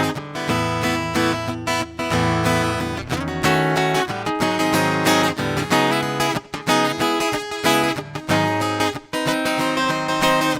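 Acoustic guitar strumming a steady rhythm of chords, with no singing.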